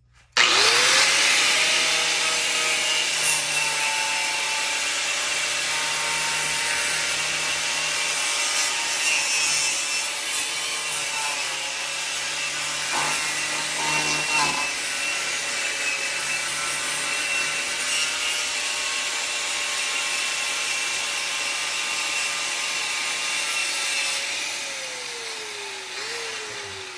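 Electric grinder with a more aggressive abrasive attachment starting up and spinning up, grinding surface rust and pits off the car's steel body panel. Near the end it is switched off and winds down.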